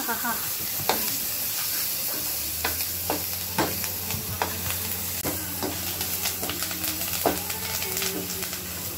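Curry leaves and dried red chillies sizzling in hot oil in a steel kadai, stirred with a perforated steel ladle that clinks and scrapes against the pan now and then. About two seconds in, a kitchen exhaust fan starts up and hums steadily underneath.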